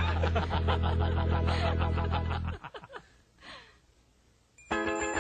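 A character's voice laughing in quick repeated bursts over a low steady hum, stopping about two and a half seconds in. After a short quiet gap with a faint breath, a held chord of sustained tones starts near the end, the opening of the song.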